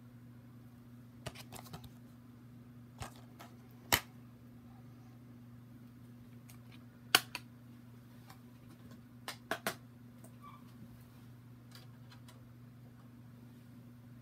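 Scattered sharp plastic clicks and snaps from a DVD case being handled, the loudest about four and seven seconds in and a quick run of three a little after nine seconds, over a steady low electrical hum.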